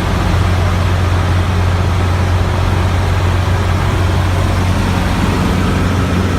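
Cessna 150's four-cylinder Continental O-200 engine and propeller running steadily in cruise flight, a constant low drone with rushing noise over it.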